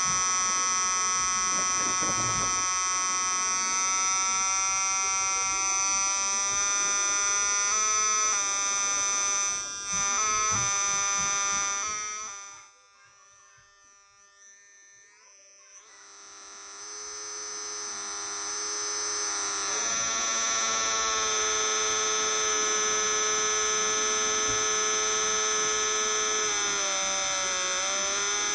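Electrical coil whine from a Lawton pulse circuit driving a step-up transformer and bifilar chokes into a water cell: a steady buzzing tone with many overtones, its pitch stepping as the pulse train is adjusted. About halfway through it cuts out for a few seconds, then comes back and builds into a steady tone.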